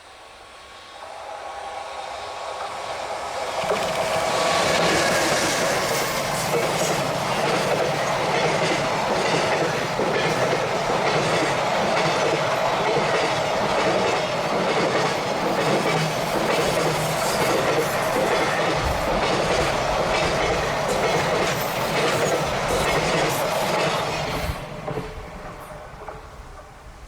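Freight train hauled by an EH500 electric locomotive passing close by. The sound builds over the first few seconds, then the wagons' wheels clatter steadily over the rail joints for about twenty seconds, and it fades near the end.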